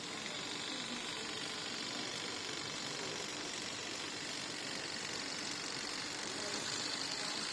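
Cordless split-end trimmer machine running steadily with a high, hissing motor whir.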